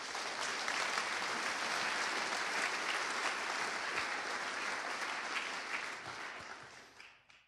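A large audience applauding, steady at first and then dying away over the last second or so.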